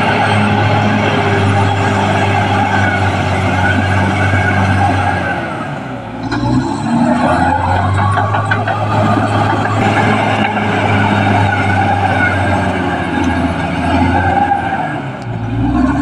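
Caterpillar D6R XL bulldozer's diesel engine working under load, with the clank of its steel tracks. The engine note sags and shifts about six seconds in and again near the end, then settles back to a steady pull.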